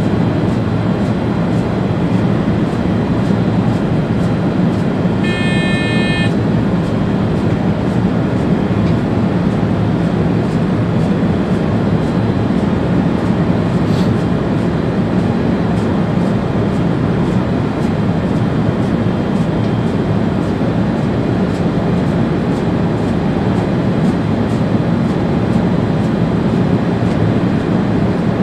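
ÖBB Railjet high-speed train running steadily, heard from the driver's cab as a deep, even running noise. About five seconds in, a short electronic beep sounds for about a second, and a faint click comes near the middle.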